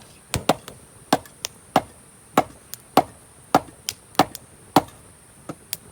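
Scrap cedar wood being chopped, a steady run of sharp strikes roughly two a second.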